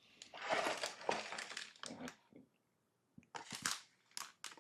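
LEGO set packaging being handled as the box is opened and emptied: cardboard and plastic bags crinkling and rustling for about two seconds, then, after a brief pause, a run of sharp clicks and taps.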